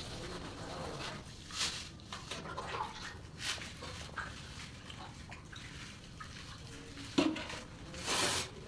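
Water poured from a mug onto a wet mortar bed and smeared over it by hand, with soft splashing and wet rubbing strokes. A few louder scraping strokes come near the end.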